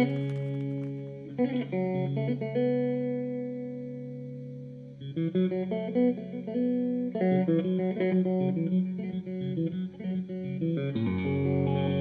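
Electric guitar playing slow chords and picked notes that ring on for several seconds before the next change, with no drums.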